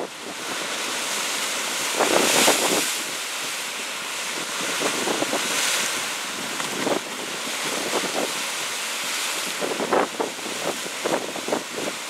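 Sea waves breaking against rocks and washing over a shallow sandy cove: a continuous rush of surf, with a louder surge about two seconds in and choppier splashing near the end.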